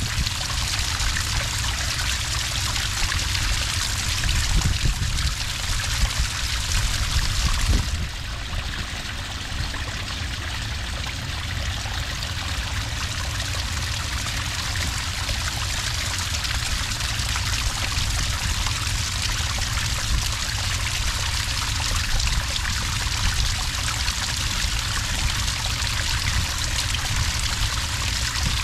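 Small cascade of water pouring steadily into sand, a continuous trickling, splashing rush that dips slightly in level about eight seconds in.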